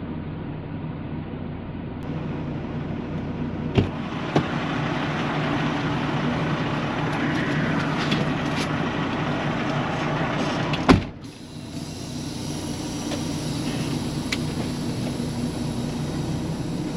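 Semi truck's diesel engine idling steadily, with two clicks about four seconds in and a truck door slamming shut about eleven seconds in, after which the outside noise drops away.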